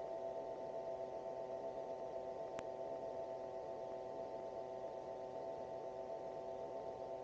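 Magni gyroplane's engine and pusher propeller running steadily under power in flight, a constant drone. A brief click comes about two and a half seconds in.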